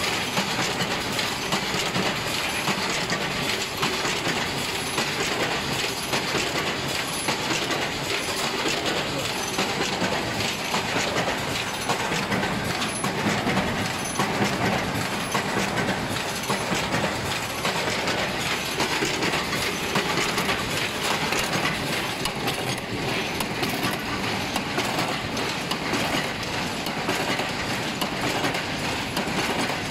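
Hinge joint field fence machine running in production: a dense, steady metallic clatter from its wire-twisting and crimping mechanism, without let-up.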